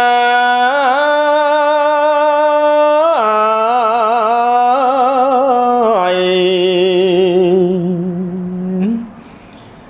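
Buddhist monk chanting smot, Khmer chanted poetry, in a single unaccompanied voice. He holds long drawn-out notes with a quivering, ornamented wave in the pitch, steps down lower about six seconds in, then fades out near the end.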